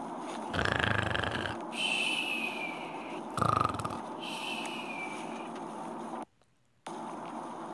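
A man snoring in deep sleep: two loud snores about three seconds apart, each followed by a high tone that falls slowly.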